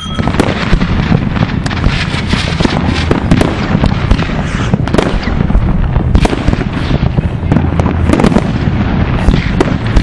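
Fireworks and firecrackers banging and crackling without a break, many going off at once, as rockets are launched.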